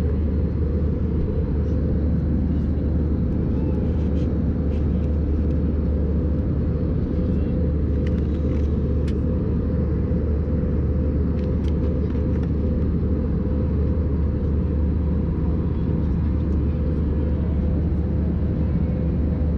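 Steady airliner cabin noise of an Airbus A320 in flight: an even drone of engines and airflow, strongest in the low range, with a few faint clicks scattered through it.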